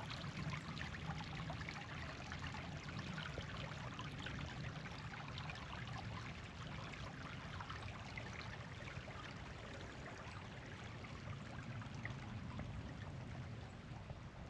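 A small stream running and trickling steadily, a continuous even hiss of water.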